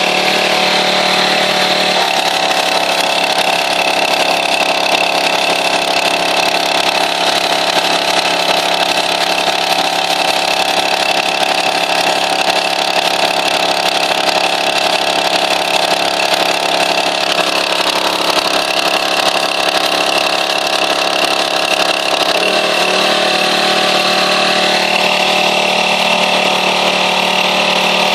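Pressure washer's engine running steadily, its note shifting briefly about two seconds in and again later on.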